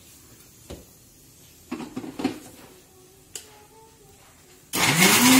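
A few light knocks and clatters as the steel jar of a mixer grinder is lidded and seated on its base, then, near the end, the grinder's motor starts with a loud whir whose pitch rises as it spins up, grinding a wet spice paste.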